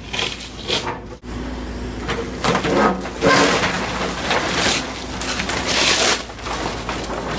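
Demolition of a mobile home: irregular crunching and cracking of wood and sheet material being broken apart, heaviest in the middle stretch, with a short break about a second in.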